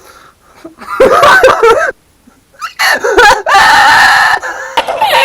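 Young men shouting and screaming, loud enough to overload the microphone, two wordless bursts and then one long high scream held near the end.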